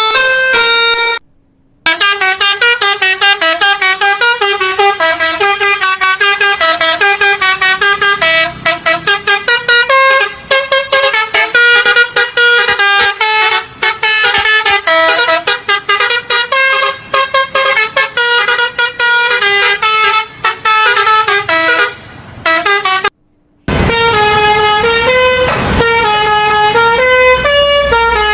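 A bus's 'telolet' musical air horn, a Basuri multi-trumpet set, playing a fast melody of short staccato notes. It cuts out briefly twice. For the last few seconds the notes are held longer over engine and street noise.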